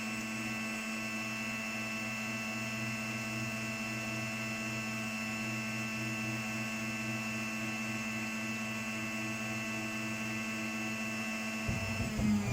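ISEL GFM 4433 CNC router running a slow drilling pass into aluminium: a steady hum with fixed tones from the spindle and axis drive as the Z axis feeds the drill slowly down. The tones change abruptly about twelve seconds in.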